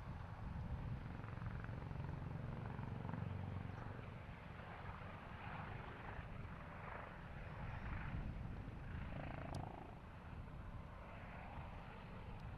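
Airbus H145M helicopter in flight, its rotor and twin turbines giving a steady, fairly faint rumble with a rushing noise that swells and fades. A brief tick about nine and a half seconds in.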